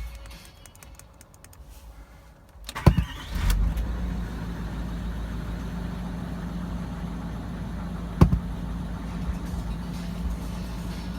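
Range Rover Sport TDV8 twin-turbo diesel V8 started from cold at about −10 °C. After a click about three seconds in, it cranks briefly, catches and settles into a steady idle. A single sharp click comes about three-quarters of the way through.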